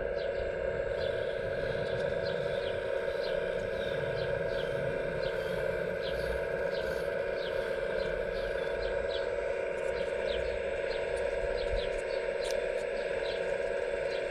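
Electric hydraulic pump of an RC model excavator running with a steady, even whine. Short high chirps from birds or insects repeat irregularly over it.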